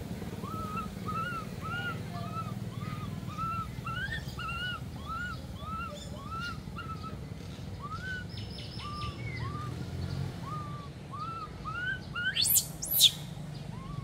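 A young monkey giving short, high rise-and-fall squeaking calls over and over, about two a second, then two loud, shrill rising shrieks near the end.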